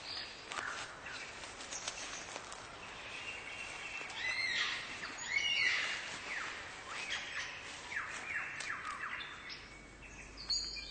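Birdsong: a run of varied whistled calls, many sliding down or arching in pitch, busiest around the middle.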